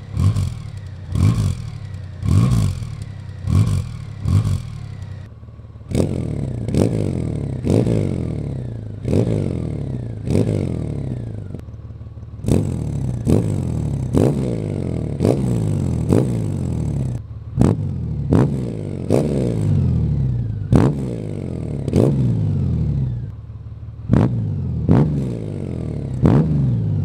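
2018+ Honda Goldwing's flat-six engine blipped repeatedly from a standing idle through a Remus Performance Sport Exhaust, each rev rising sharply and falling back to idle, about one a second. The exhaust's electronic valves are partly open, then fully open later on.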